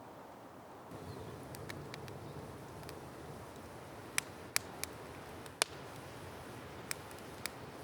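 Wood fire crackling: a handful of sharp, irregular pops and snaps, the loudest about four to six seconds in, over a steady low rumble.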